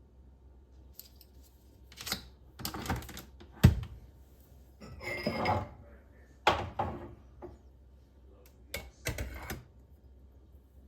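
Objects being handled and set down: a run of knocks, clatters and short scraping sounds, with one sharp knock about three and a half seconds in.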